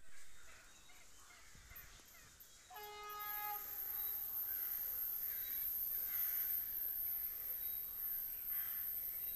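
A distant train horn sounds once, a steady pitched blast of about a second, almost three seconds in, from a train still out of sight down the line. Faint bird calls are heard around it.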